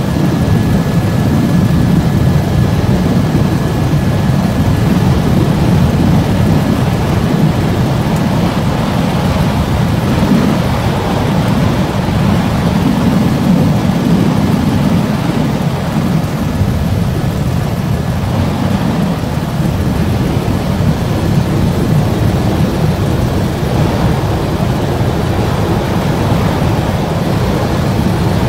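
Steady, loud aircraft cabin noise: a dense low rumble of engine and airflow, with a faint thin steady whine above it.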